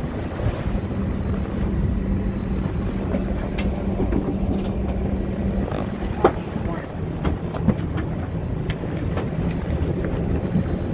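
Steady low rumble of an airliner cabin at the gate during boarding. A steady hum stops a little past halfway, and scattered clicks and knocks come from the phone rubbing in a pocket or being handled.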